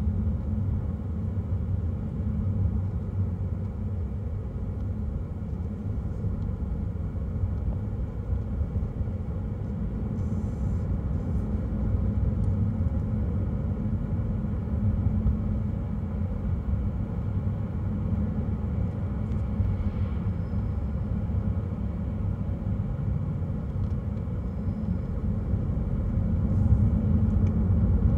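Steady low rumble of a car driving along a road, tyre and engine noise, getting a little louder near the end.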